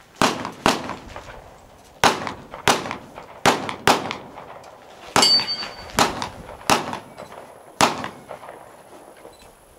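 A string of about ten gunshots in quick pairs and singles from a competitor shooting a 3-gun stage, with a steel target ringing after one hit about five seconds in.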